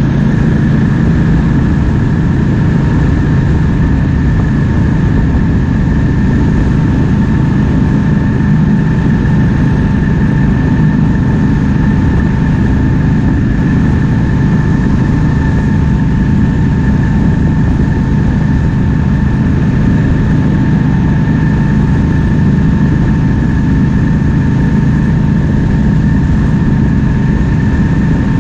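Triumph Speed Twin 1200's 1200 cc parallel-twin engine running at a steady, even cruise while riding, with wind noise rushing over it. A steady high whine sits above the engine note throughout.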